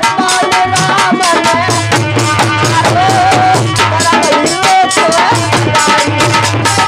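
Devotional bhajan music: a man singing over a harmonium melody, a dholak drum beat and the steady jingle of a chimta.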